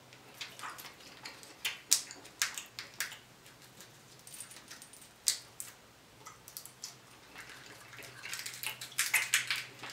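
Cooked crab cluster shells crackling and snapping in irregular clicks as they are picked apart by hand, with close-up chewing and mouth sounds. The clicks come thicker near the end.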